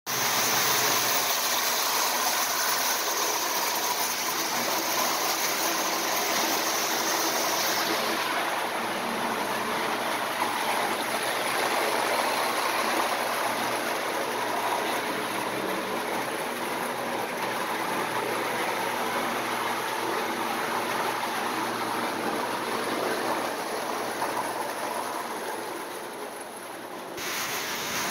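Prewar Marx tinplate toy trains running on three-rail metal track: a steady, noisy rumble of wheels and motors, dipping briefly near the end.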